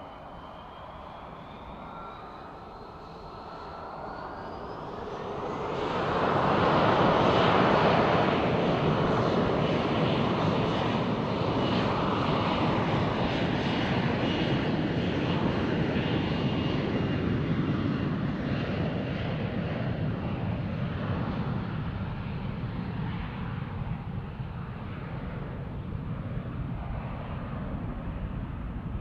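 Jet airliner's engines, with a rising whine in the first few seconds. The noise swells to a loud peak about seven seconds in, then slowly fades as the aircraft moves away.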